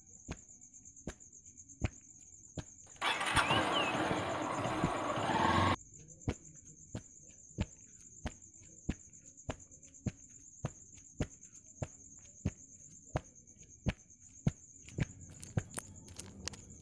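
Unhurried footsteps on a tarmac road, about three steps every two seconds. Before them comes a few seconds of rushing noise that cuts off suddenly.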